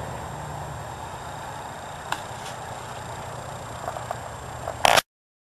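Steady low rumble of an idling truck engine under outdoor noise, with a couple of faint clicks about two seconds in. Near the end comes a loud, brief burst of noise, and then the sound cuts off abruptly.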